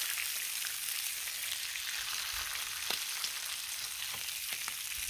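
Bacon strips frying on a Blackstone flat-top griddle: a steady sizzle with a few scattered small pops.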